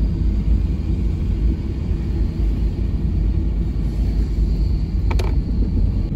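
Steady low rumble of a car driving, with engine and tyre noise heard from inside the cabin. A single sharp click comes about five seconds in.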